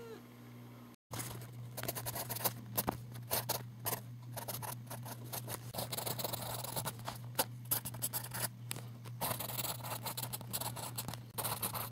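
Pencil scratching across lined notebook paper as words are written out: quick runs of short strokes with brief pauses, starting about a second in.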